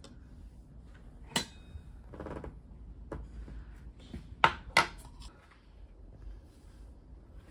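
Tableware clinking: a metal spoon and metal lidded bowls knocking against dishes in a few sharp clinks across the first five seconds, the first with a short ring.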